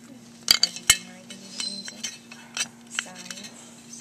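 Sharp metal clinks from a cast carburetor body and hand tools being handled on a steel workbench: a few separate taps, two close together about half a second in and two more near the end, over a steady low hum.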